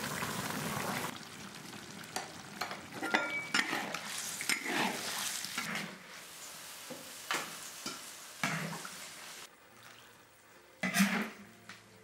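A metal ladle scraping and scooping braised beef and potatoes in a large wok, in irregular strokes with light metallic clinks. A steady simmering hiss fills the first second, and a single loud metallic clank comes near the end.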